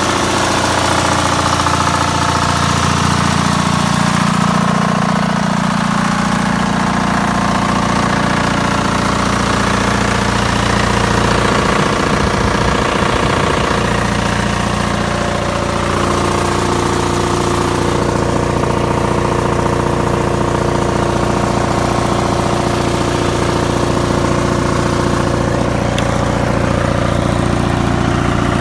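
MEP002A military generator's two-cylinder Onan diesel engine running steadily.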